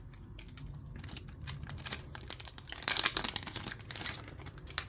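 A trading card pack's plastic wrapper crinkling and tearing as it is pulled open by hand, with louder rustling about three and four seconds in.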